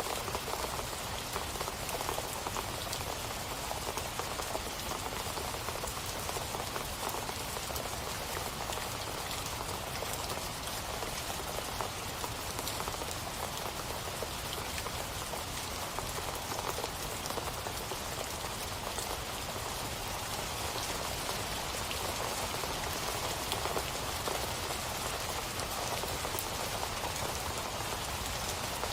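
Steady rain falling on a surface, an even hiss of many small drop impacts with no change in intensity.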